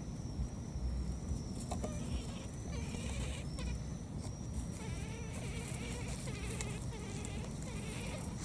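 A baby monkey crying in wavering calls, over rustling grass and a steady high insect buzz.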